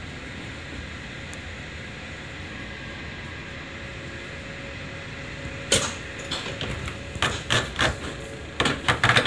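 Steady running noise inside a Hokkaido Shinkansen train pulling out of the station, then about a dozen sharp, loud knocks in quick, uneven succession over the last three and a half seconds.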